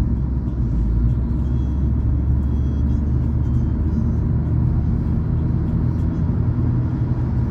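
Car driving at a steady cruise, heard from inside the cabin: an even, low rumble of engine and tyre noise.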